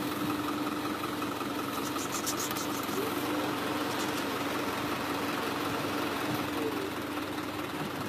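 Engine idling steadily, an even hum with a constant low tone.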